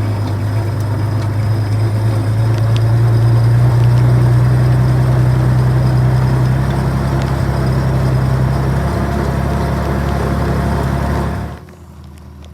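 Clarktor aircraft tug's engine running steadily as it is driven, its note dropping after about two-thirds, then cutting off abruptly near the end, leaving the hiss of rain.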